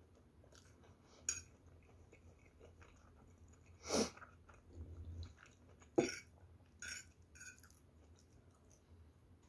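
Quiet chewing of fried rice, with a metal fork clinking and scraping on a plate a handful of times, the loudest clinks about four and six seconds in.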